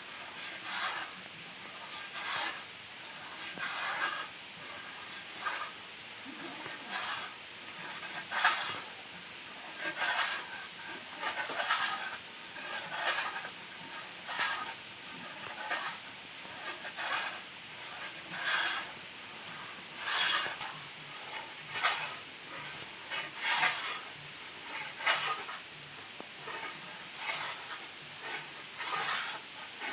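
Manual wood hand plane shaving wood in repeated scraping strokes, about one stroke every second and a half.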